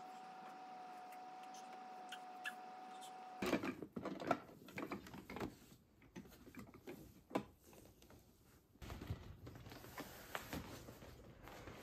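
Scattered clicks, knocks and light clatter of plastic toy parts being handled by a baby at a plastic activity centre. Before them comes a steady faint high tone for about three seconds, and near the end a few soft taps.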